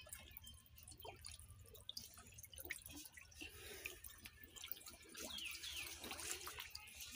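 Faint drips and small splashes of water in a plastic tub as a hand stirs it among live catfish, a little louder near the end.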